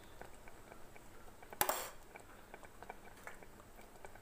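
A metal spoon clinks once against a metal cooking pot about one and a half seconds in, with a short ring. Behind it are faint, scattered ticks from thick milk-cooked rice simmering on a low flame.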